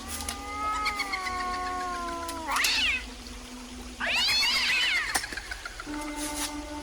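An animal calling, meow-like: one long, drawn-out call that sinks slightly in pitch, then two short calls that rise and fall. Steady background music comes in near the end.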